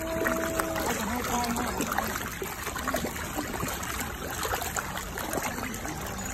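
A dense crowd of fish thrashing and splashing at the water surface as they compete for food thrown in by hand: a steady churning wash of water with many small sharp splashes and slaps.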